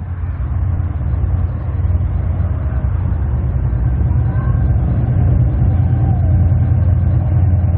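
Diesel locomotive hauling an empty coal train approaching, its engine giving a deep steady rumble that slowly grows louder as it nears.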